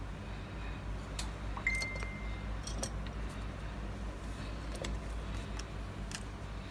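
Scattered light clicks and clinks of small tools and objects being handled on a workbench, over a steady low hum. About a second and a half in, a short electronic beep.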